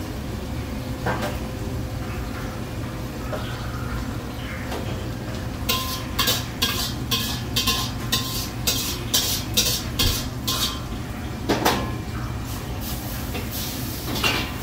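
A metal spatula scrapes quickly round a steel wok, about two to three strokes a second, as cooked food is emptied into a steel pan, with a few more scrapes near the end. A steady low hum runs underneath.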